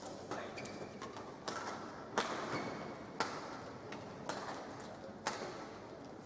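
Badminton rally: rackets striking the shuttlecock in sharp cracks about once a second, the loudest hit about two seconds in, over the steady hum of the hall.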